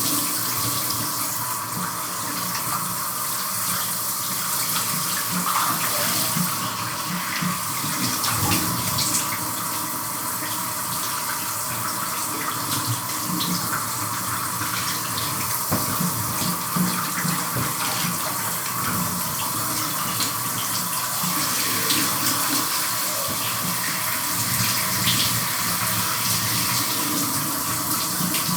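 Shower running: a steady spray of water with irregular splashes and spatters as someone showers under it.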